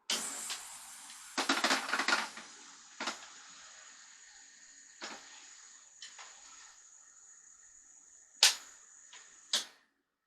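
Plastic retaining tabs on the back of a laptop cooler being pried up with a kitchen knife: a cluster of scraping clicks about one and a half to two seconds in, then single clicks every second or two, the sharpest two near the end. A steady high hiss runs underneath.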